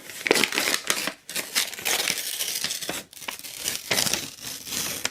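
Paper being ripped in several long tearing strokes with short pauses between them, a crackly rasp with much high-pitched hiss.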